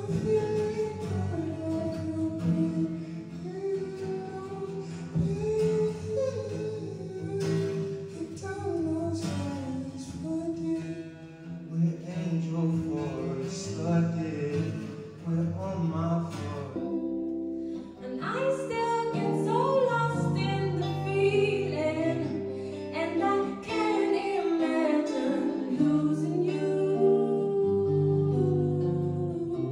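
Live music: a singer over guitar and a bass-heavy backing. A little over halfway the music dips briefly and changes to a different passage.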